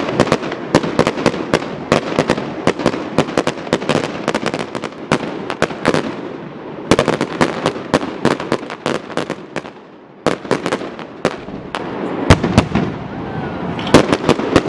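Fireworks display: a rapid, dense run of bangs from aerial shells bursting, with a brief lull about ten seconds in before the bangs start again.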